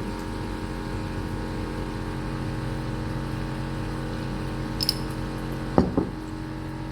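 A steady machine-like hum in a kitchen during stir-frying, with a couple of faint ticks near the end and two sharp knocks just after.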